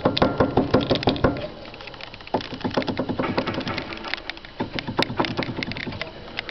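Mitsubishi Lancer X electric power steering rack knocking: rapid, rattling clacks, several a second, with a short lull about a second and a half in before they start again. The knock comes from the rack's worn-through bushing, which lets the shaft bang about inside.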